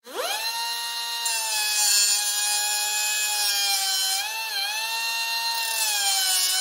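Electric drill starting up, quickly rising in pitch to a steady high whine. Its pitch dips and wobbles briefly about four seconds in. A bright hiss rides on top through much of the run.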